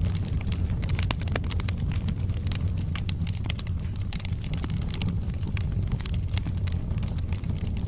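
Wood fire burning in a fireplace: a steady low rumble of flames with many irregular sharp crackles and pops from the burning logs.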